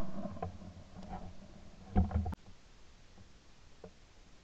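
Tail of a shotgun shot echoing and dying away, then faint clicks and a dull thump ending in a sharp click about two seconds in, typical of the shotgun being handled after the shot.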